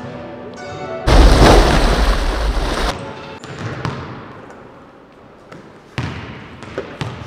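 A loud, sudden burst of noise about a second in, lasting just under two seconds, then a basketball bouncing a few times on a hardwood gym floor near the end.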